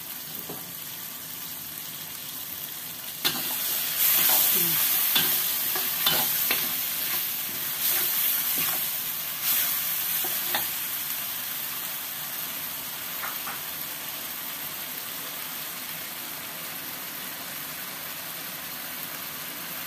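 Stir-fry of vegetables and chili sauce sizzling in a wok while a metal spatula stirs it, scraping and knocking against the pan. The stirring is busiest from about three seconds in to about halfway, then it settles to a steady sizzle.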